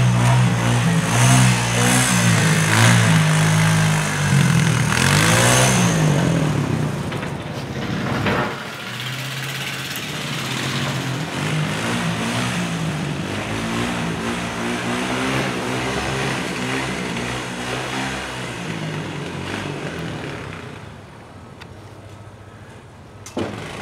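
ATV engine revving up and down while the machine pushes snow with its front plow blade. It is loud for the first several seconds, then continues at a lower level and fades further near the end.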